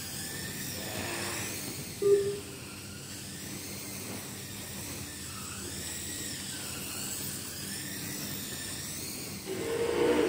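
Electric slot cars running on a track: the small motors' high whine rises and falls in pitch over and over as the cars speed up and slow down. A brief louder sound cuts in about two seconds in, and the level rises again near the end.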